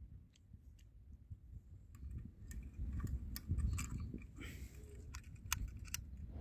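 Scattered small clicks and metallic ticks of a folding camping gas stove being handled and its parts moved into place, coming thicker after about two seconds, over a low rumble.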